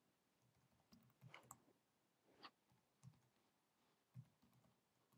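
Faint, irregular clicks of keystrokes on a computer keyboard, about half a dozen spread over a few seconds.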